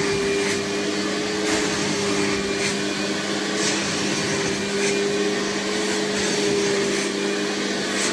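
Fakir Deluxe Öko Line 9800S carpet-washing machine running steadily, its suction motor humming as the upholstery nozzle draws water back out of a wet fabric sofa. A brighter rush of air comes about once a second as the nozzle passes.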